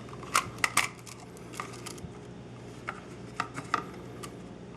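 Irregular sharp clicks and taps of an electrical box being worked by hand, a quick cluster in the first second and scattered single ones after, over a faint steady hum.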